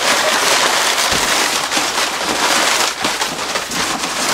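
Crumpled brown kraft packing paper crinkling and rustling as it is pulled in big armfuls out of a cardboard shipping box: a loud, continuous crackle full of small sharp snaps.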